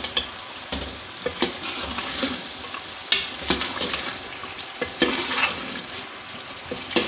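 Steel ladle stirring a thick chickpea-and-chicken curry, freshly thickened with mashed potato, in an aluminium pot. Irregular scrapes and knocks of the ladle against the pot sound over a steady sizzle of the gravy cooking on the stove.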